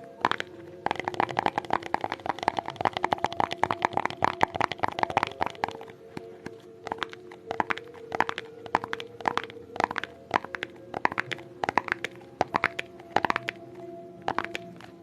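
ASMR tapping: a rapid, dense run of taps for about five seconds, then slower, more spaced taps, over a steady low tone.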